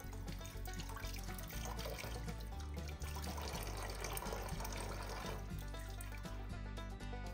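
Tap water running into a stainless steel sink and splashing over nettle and dandelion leaves as they are rinsed by hand, with background music playing over it.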